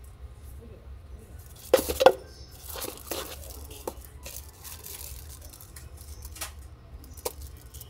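Small objects being handled close by: rustling and tearing of packaging with scattered light knocks and clinks, the loudest a pair of knocks about two seconds in, over a steady low hum.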